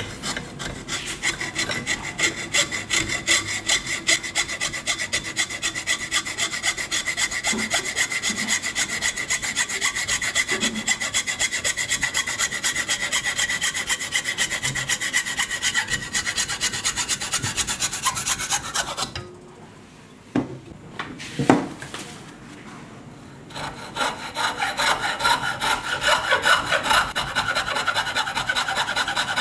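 Hacksaw cutting through a hardwood board held in a bench vise: fast, even back-and-forth strokes. About two-thirds through the sawing stops for a few seconds, with a couple of knocks, then starts again.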